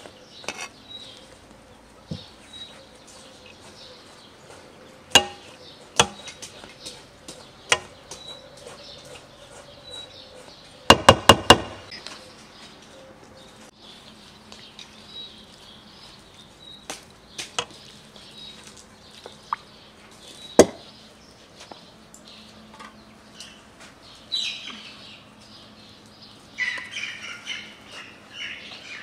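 Metal skimmer clinking and knocking against an aluminium cooking pot, with scattered single knocks and a quick run of about four sharp knocks around the middle, the loudest sound here. Birds chirp faintly in the background.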